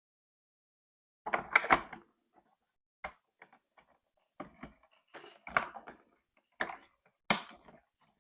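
AA batteries being fitted into the plastic battery compartment of a toy X-Wing: a run of irregular plastic clicks and knocks, starting about a second in.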